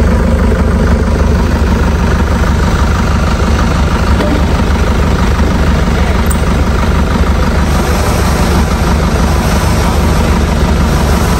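Four-wheel-drive vehicle engine running steadily on a muddy off-road trail, a deep even drone without revving.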